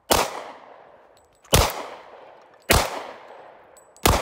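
Four handgun shots, spaced about a second and a half apart, each trailing off in a long echo.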